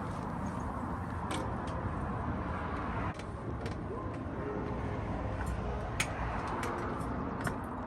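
Quiet background noise with a few light clicks and taps scattered through it.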